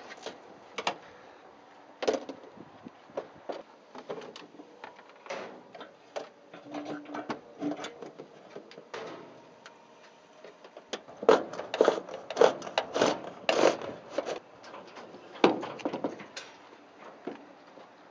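Irregular clicks, taps and knocks as the door of a Zenith STOL CH 750 light aircraft and its hinge fittings are worked by hand at the door opening. The loudest run of knocks comes about two thirds of the way through.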